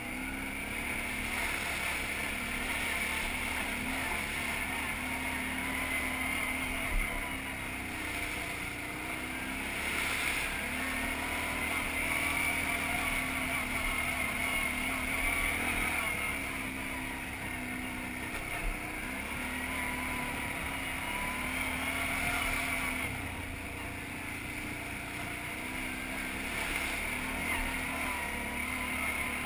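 ATV engine running as the quad is ridden over sand and mud, its pitch rising and falling with the throttle. Two brief sharp knocks stand out along the way.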